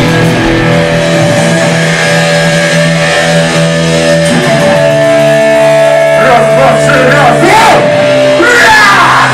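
Rock music led by electric guitar, with long held chords and wavering melodic lines about two-thirds of the way in.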